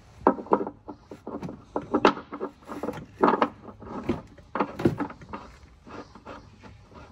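A string of irregular knocks and clunks from hands handling tools and parts during an oil change.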